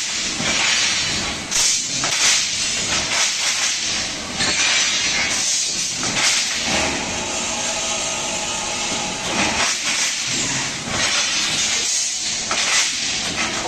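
CNC 325 machine with automatic stock feeding running: a steady hiss with several louder surges, and a faint steady whine for a couple of seconds in the middle.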